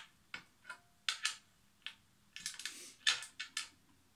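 Small Allen key tightening screws into a metal table-leg frame: a run of light, irregular clicks as the key is turned and reset in the screw head, with a brief scrape about halfway through.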